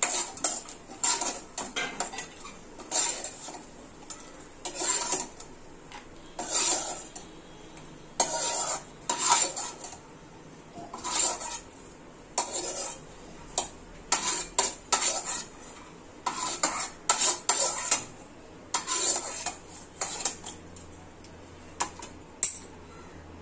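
Steel ladle scraping and scooping around a non-stick kadhai and clinking against a steel bowl as fried cashew and almond pieces are lifted out of the ghee: irregular strokes about every second or two.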